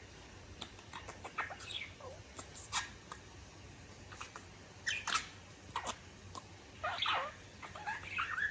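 Budgerigar chattering: short, scattered chirps and clicks, with a few louder bursts in the second half.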